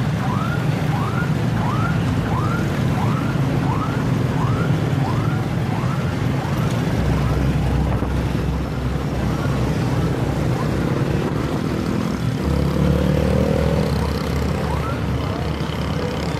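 Street traffic drones under an electronic siren that yelps in short rising sweeps about twice a second. The siren fades out after about ten seconds, with one more sweep near the end.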